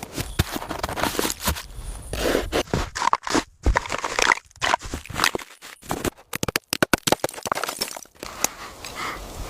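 A rapid, irregular jumble of sharp clicks, knocks, crunches and scrapes, broken by sudden cuts to near silence.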